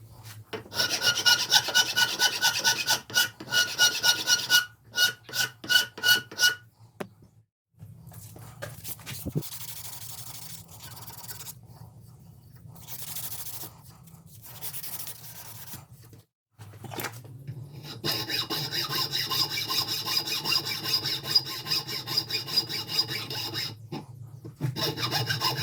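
A wooden hammer handle being filed down by hand to fit the hammerhead's eye. It starts with rhythmic back-and-forth rasping strokes that ring, goes quieter in the middle, and ends with a steadier, denser stretch of filing, with abrupt breaks between the stretches.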